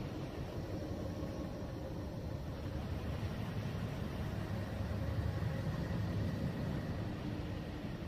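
Steady, deep rumbling noise with faint steady hum tones above it: an ambient 'space sound' noise track for sleep.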